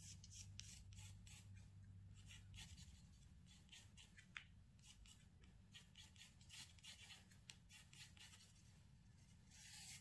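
Faint scratching of a graphite pencil on textured watercolour paper: a run of short, irregular sketching strokes as leaf lines are drawn.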